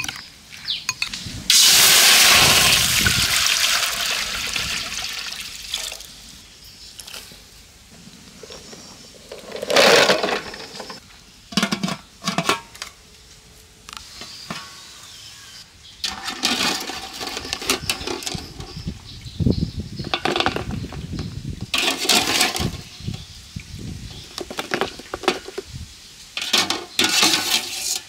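Water rushes into a large aluminium cooking pot, loud at first and then fading over a few seconds. Separate clinks and knocks of metal cookware follow: the pot lid, and a wire strainer against the pot.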